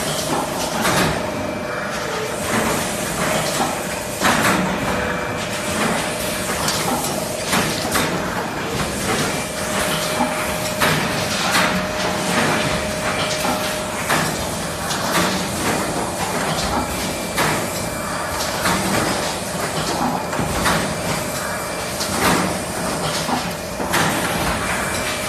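An automatic cup fill-and-seal machine running, with repeated sharp clacks and knocks from its moving stations and a steady hum underneath.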